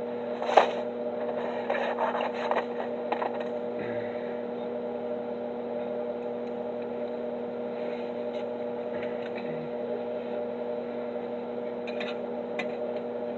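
Steady electrical hum of a stick (arc) welding machine, with a few sharp clicks and knocks in the first few seconds.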